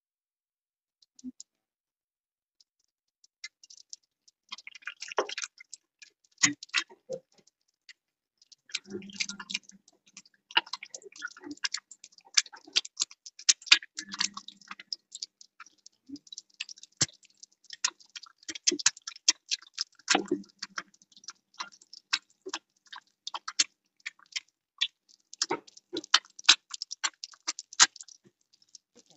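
An egg frying in hot oil in a wok, the oil crackling and spitting in dense, rapid, irregular pops that start a few seconds in and carry on without a break.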